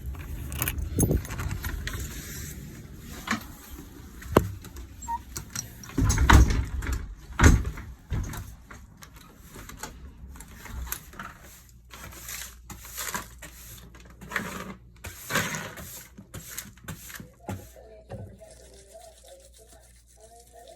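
A key working a house door lock: metal clicks and rattles as it goes in and turns, then the door opening and shutting with two heavy thumps about six and seven seconds in, followed by more clicks as the lock is turned back.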